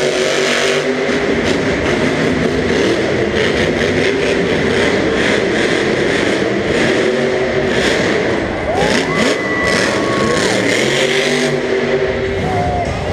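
Grave Digger monster truck's supercharged V8 revving hard through a freestyle run, heard across an arena over crowd noise. The engine climbs sharply to a high pitch about nine seconds in, holds briefly, then drops back.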